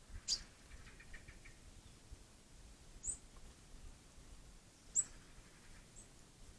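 An animal's short, very high chirps, four of them spaced a second or more apart with the loudest about five seconds in: a warning call.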